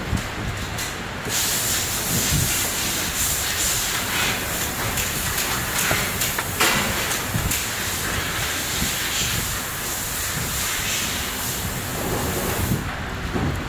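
A steady, fairly loud hiss that starts about a second in and stops shortly before the end, with a few light clicks around the middle.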